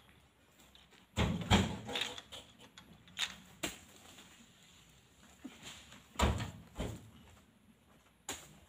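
Oil palm fruit bunches being speared with spiked poles and heaved up onto a truck's load: a series of thuds and knocks, the loudest just after a second in and again about six seconds in.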